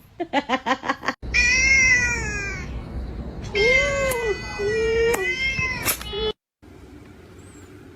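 Cats meowing: a quick run of short mews, then several long, drawn-out meows with rising and falling pitch. The sound stops abruptly near the end, leaving faint background noise.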